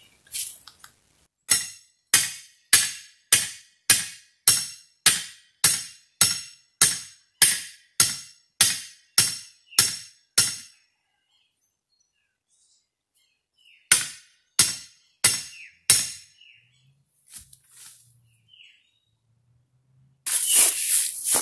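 Hammer blows driving a steel T-post into the ground: a steady series of about sixteen sharp metallic strikes, roughly one every 0.6 s, then a pause and four more strikes. Near the end there is a loud rustle.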